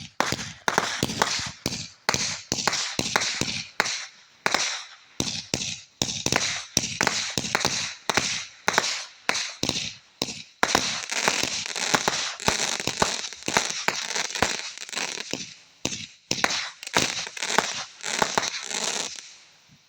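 Fireworks going off in a long, fast run of sharp pops and crackles with a hissing edge, stopping abruptly just before the end.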